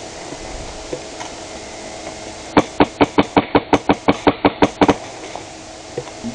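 Airsoft gun firing a rapid string of about fifteen sharp shots, roughly six a second, starting about two and a half seconds in and stopping after just over two seconds.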